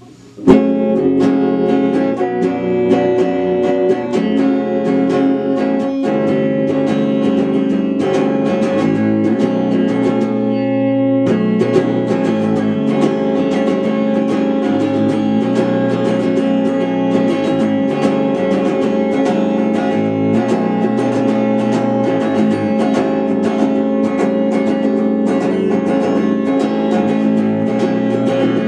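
Electric guitar played through a small amplifier, strummed chords and picked notes, starting with a loud strum about half a second in.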